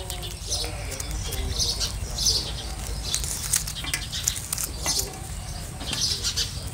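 Cooked banana-leaf wrappers of khao tom mat rustling and crackling in short bursts as two people peel the parcels open by hand.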